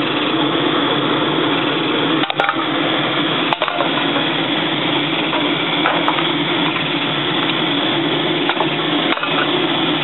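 Forced-air wood-fired furnace melting aluminum: the air blower and the blown fire make a steady, loud rushing hum, broken by a few sharp pops.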